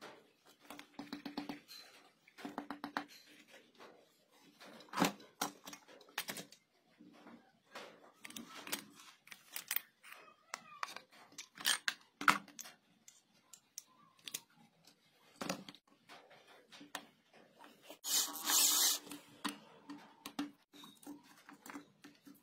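Clicks, taps and scrapes of multimeter probes and metal tools against a welding machine's circuit board as it is tested and handled, with a brief loud hiss near the end.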